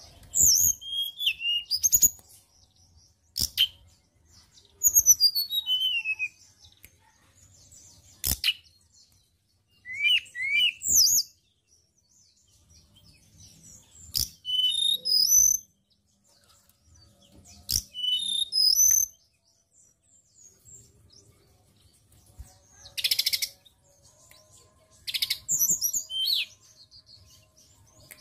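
Hill blue flycatcher singing: short phrases of quick, clear whistled notes, many sliding downward, repeated again and again with pauses of a second or more between them.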